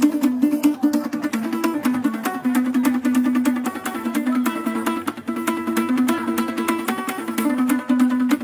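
Kologo, a two-string calabash lute of the Frafra people, plucked in a quick, unbroken run of short repeating notes.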